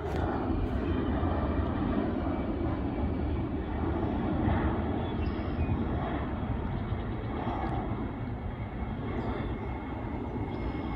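Jet engine noise from a Boeing 767 airliner passing overhead: a steady, deep rumble that slowly fades.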